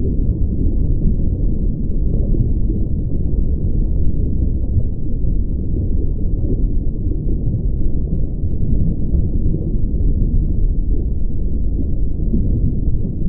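A steady, even low rumble with nothing higher in it, unbroken throughout.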